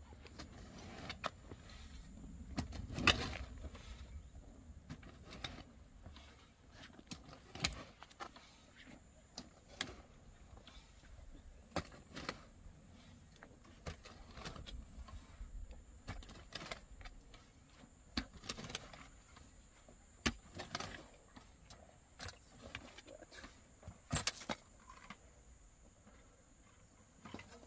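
Scattered sharp clicks and knocks of objects being handled, about one every second or two, the loudest about three seconds in, over a faint low rumble.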